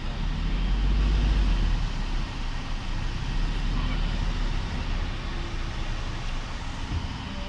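Van engine running with road noise, heard from inside the cabin: a steady low rumble that grows louder over the first couple of seconds, then holds.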